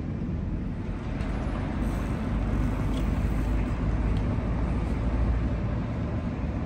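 Strong wind buffeting the microphone: a heavy low rumble that swells about two seconds in and is strongest around five seconds in.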